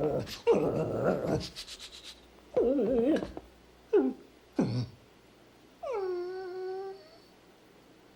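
A dog whimpering and whining in a string of short cries, then one longer whine about six seconds in that drops in pitch and holds steady.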